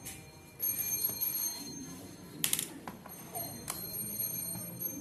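A screwdriver clinking against the metal parts of a stripped-down Canon G-series ink-tank printer: a few sharp metallic clinks, each with a brief high ring.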